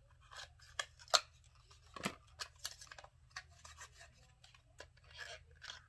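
A small cardboard product box being opened and handled by hand: a string of faint scrapes, taps and clicks, sharpest a little over a second in and at about two seconds.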